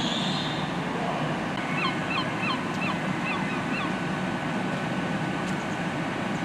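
Hitachi Class 802 bi-mode train standing at the platform on diesel power, its underfloor engines and equipment making a steady hum over a broad hiss. A high hiss dies away at the very start. About two seconds in, a bird gives a quick run of short calls.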